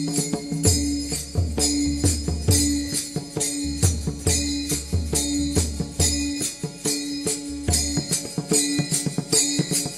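Instrumental kirtan accompaniment: pakhawaj drumming with deep bass strokes in runs, under a steady beat of small hand cymbals (taal) at about three to four strikes a second, over a held harmonium-like tone.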